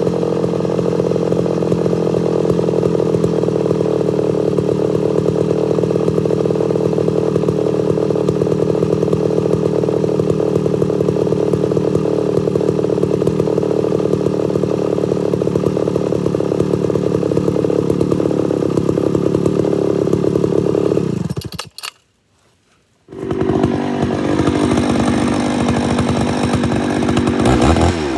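Homelite Super XL-925 82cc two-stroke chainsaw running under load as it cuts through a large log, its chain filed too aggressively so that it grabs and pulls hard in the cut. The sound breaks off for about a second roughly three-quarters of the way through, then the saw is heard running again.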